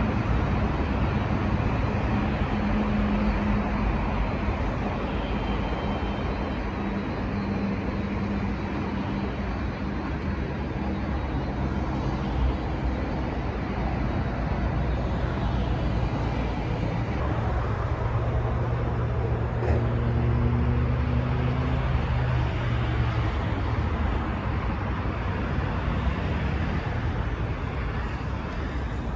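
Steady urban road-traffic noise with low engine hum from passing vehicles; a deeper engine drone swells and fades in the middle.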